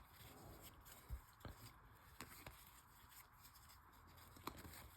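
Near silence with a few faint ticks of trading cards being handled and flipped through.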